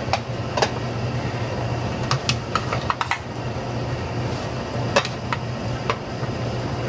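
Pot of potato and vegetable soup simmering on a gas stove: small irregular pops and ticks of bubbles breaking, some in quick clusters, over a steady low hum.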